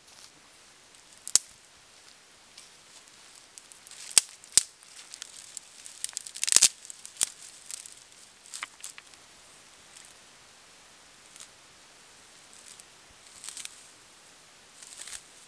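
Dry twigs snapping and crackling as they are broken and handled, loudest in a cluster about four to seven seconds in. Near the end comes softer rustling of dry grass being pulled and bunched into tinder.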